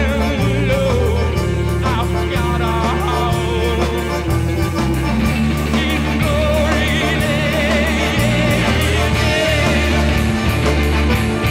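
Live alternative-country rock band playing, with sustained bass notes and a steady beat under a wavering, vibrato melody line.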